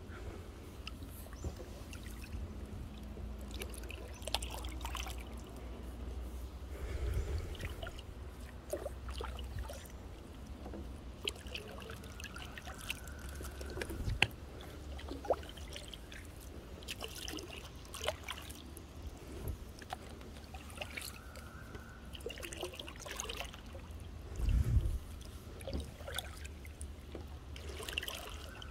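Kayak paddling: the paddle dipping and pulling through water with trickling and dripping, scattered light knocks, over a steady low rumble. A louder dull thump comes near the end.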